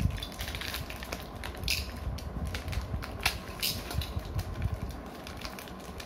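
Irregular clicks and light clatter of small plastic Beyblade parts being handled.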